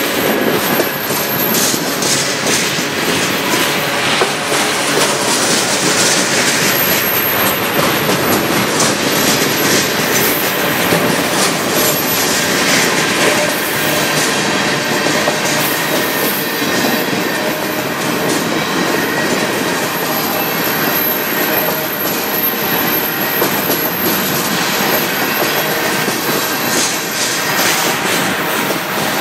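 Freight cars of a long CN train rolling past close by: steel wheels running and clattering over the rails in a steady, unbroken stream, with thin high wheel squeal over it.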